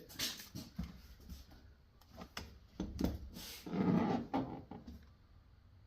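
Socket and ratchet knocking and clicking against the seat-mount bolts in a vehicle floor: irregular metal clicks and knocks, with a longer scraping rattle a little past the middle.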